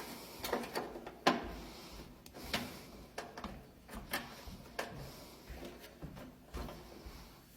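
Scattered plastic clicks and knocks as a replacement lid switch is fitted into a Whirlpool washer's top and its wiring handled. The sharpest knock comes about a second in.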